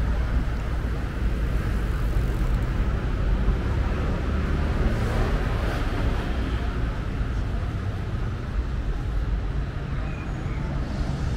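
Street traffic ambience: a steady rumble of cars running along a city street.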